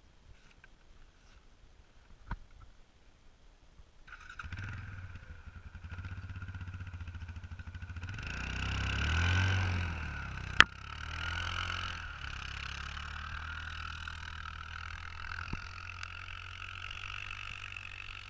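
ATV with rear half-track units running and driving off across packed snow: its engine sound comes in suddenly about four seconds in, swells to its loudest as the machine passes close by, then carries on steady and slowly fades as it moves away. A single sharp knock comes just after it passes.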